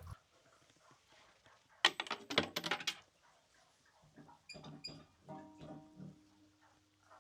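Frogs croaking: a loud run of rapid calls about two seconds in, then a softer series of croaks around five seconds in.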